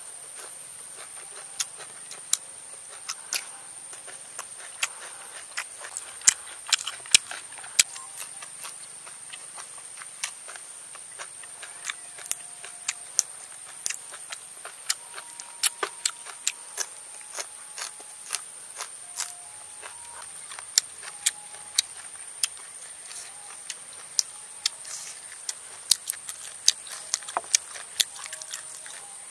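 Close-up eating sounds: sharp, irregular crunches and mouth clicks of a man chewing a raw green chili and crisp-skinned grilled duck, a few to several a second.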